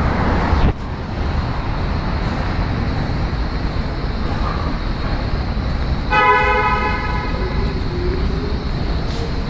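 Steady road-traffic rumble with one short car-horn toot, about half a second long, some six seconds in. A louder rush at the start cuts off suddenly under a second in.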